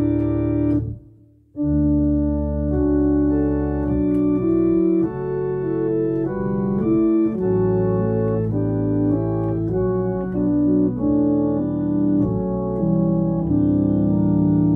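Organ music: slow, held chords that change every second or so. It breaks off briefly about a second in, then carries on.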